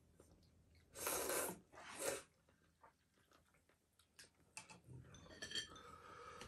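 Two short slurps of noodles about a second in, then a few light clinks of a ladle and chopsticks against the cooking pot.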